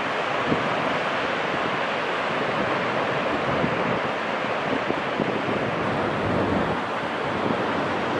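Steady rush of ocean surf breaking.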